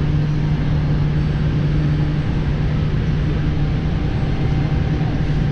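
Steady low mechanical drone with a constant deep hum that does not change in pitch or loudness.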